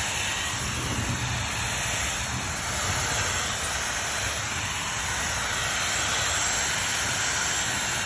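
Handheld hairdryer running steadily, a constant rushing hiss of air, as it blows across a pool of wet resin.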